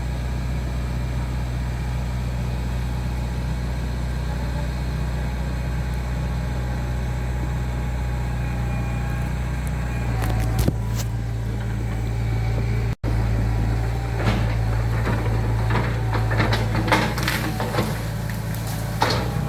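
Heavy construction machinery engine running steadily, growing louder about halfway through. In the last third, repeated knocks and clatter sound over the engine.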